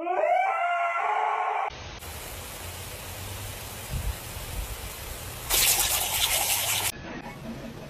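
A husky's short drawn-out howl, its pitch bending up and down. Then the steady hiss of water jetting from a lawn sprinkler head as a puppy snaps at the spray, louder for a second or so near the end.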